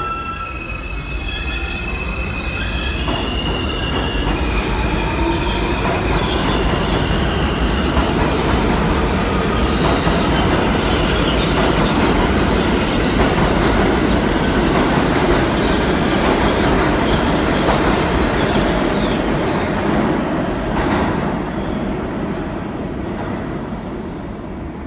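An R160 New York City subway train pulling out and accelerating. Its traction motors whine in rising steps over the first few seconds, then the cars run past at speed in a loud, steady rumble that fades as the last car clears the station near the end.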